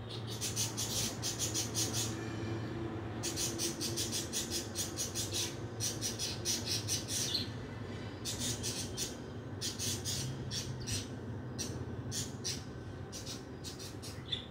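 A bird calling in rapid runs of high, sharp chirps, about six a second, in several bursts with short pauses between, over a steady low hum.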